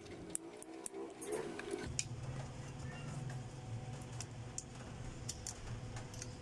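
Faint clicks and taps as a printed circuit board and its components are handled on a workbench, over a low steady hum that starts about two seconds in.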